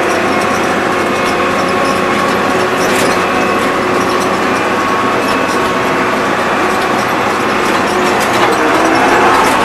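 Farm tractor engine running steadily under way, with a steady whine over the engine noise.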